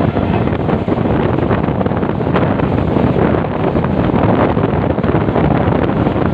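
Wind buffeting the microphone, loud and steady, over the running rumble of a moving express train's coaches on the track, with faint ticks mixed in.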